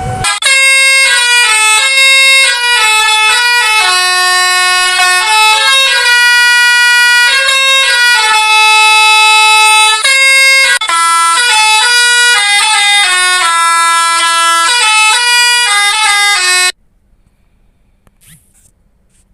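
Telolet horn playing a loud melody, one sustained note after another with short gaps, then cutting off abruptly about three seconds before the end.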